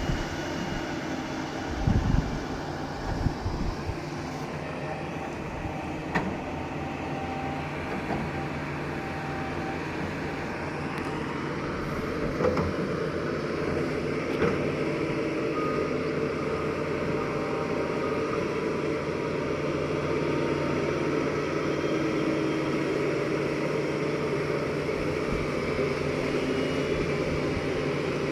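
Heavy earthmoving machine's diesel engine running steadily under work, with two low thuds about two and three seconds in; the engine gets slightly louder in the second half.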